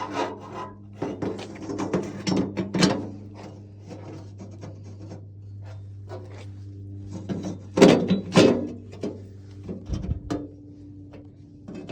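Clunks, knocks and rattling of a metal emblem being handled and fitted against the nose panel of a VW split-window bus, in two bursts, over a steady low hum.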